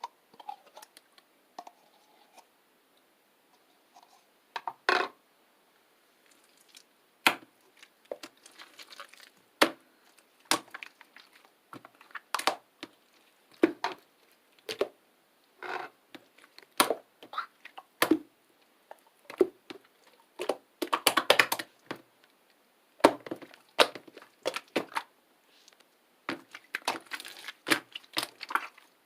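Clear slime full of air bubbles being squeezed and pressed by hand, giving irregular sharp pops and crackles, with dense runs of them about two-thirds of the way in and again near the end.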